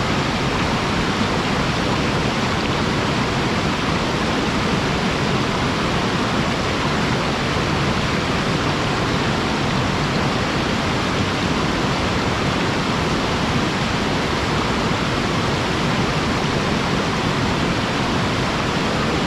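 Waterfall splashing down in a steady, unbroken rush of water.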